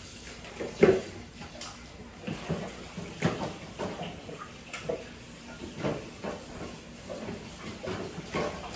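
Water running from a kitchen tap into a pot, with scattered knocks and clatter as the pot is handled.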